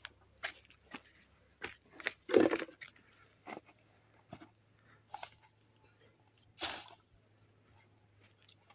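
Bundles of dry brushwood crackling and crunching as they are carried and dropped onto a brush pile, among scattered snaps and steps on dry ground. The loudest crunches come about two and a half seconds in and again near seven seconds.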